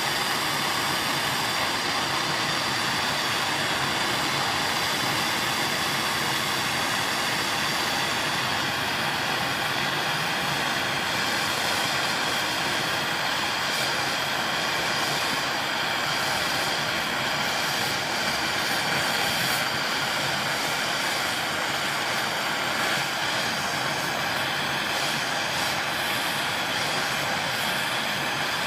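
Gas torch burning steadily with a constant rushing hiss, its flame heating a copper piece from below a mesh trivet to fuse powdered enamel.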